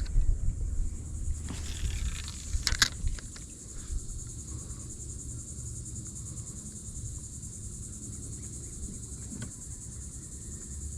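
Steady high-pitched buzzing chorus of insects. A few knocks and a clatter stand out in the first three seconds, over a low rumble.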